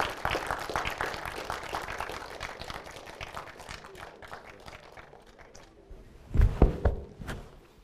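Audience applauding, the clapping fading away over several seconds. A few heavy low thumps follow near the end.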